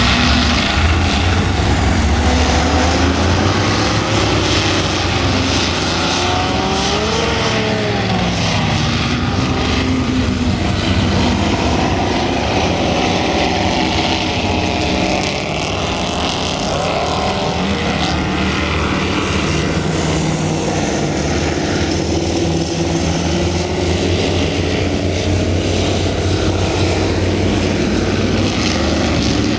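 Offshore racing powerboats running hard at high speed, several engines overlapping in a steady loud drone with the hiss of spray. The engine note rises and falls in pitch as boats pass, plainly about a quarter of the way in and again a little past the middle.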